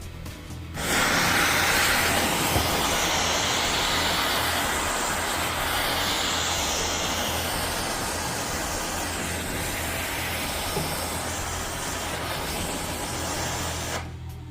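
Acetylene gas hissing hard as it jets from the nozzle of a homemade plastic-bottle gas generator, easing off slowly and cutting off near the end, with background music underneath.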